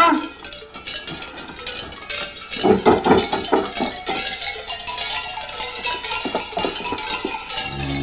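A rapid, irregular series of sharp metallic clanks and knocks, opening with a brief wavering, cry-like tone. The clanking grows denser and louder about two and a half seconds in, and a low sustained music drone comes in at the very end.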